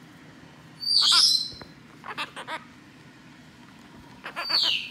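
Blue-crowned conure calling: a loud high screech about a second in, a few short chirps after it, then another screech that falls in pitch near the end.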